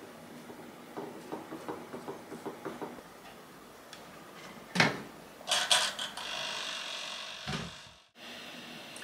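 Small Ricopa toaster oven being loaded and set: light clicks and rattles on the wire rack, a sharp metal clack about five seconds in, then a few more clicks and a brief steady whir, ending in a dull thump.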